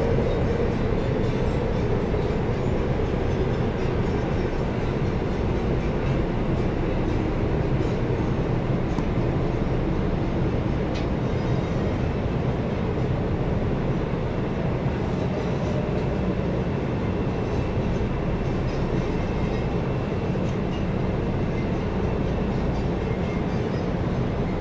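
Passenger train running through a tunnel, heard from inside the carriage as a steady rumble and rush of noise.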